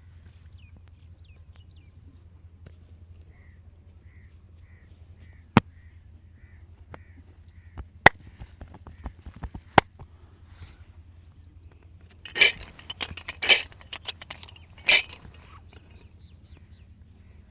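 Massage percussion: three sharp single cracks a second or two apart, then three louder, rougher smacks in quick succession near the end, the sounds of joint cracking and hands striking the body.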